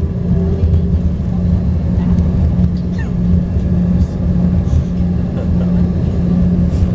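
Cabin noise of an Embraer ERJ 145 regional jet during landing: a loud, steady low rumble with a constant hum from its rear-mounted turbofan engines and airflow.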